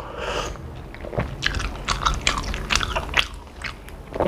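A person chewing crispy fried pempek (Palembang fish cake) close to the microphone, with a run of quick crunches through the middle. A short slurp of cuko sauce from the bowl comes at the start.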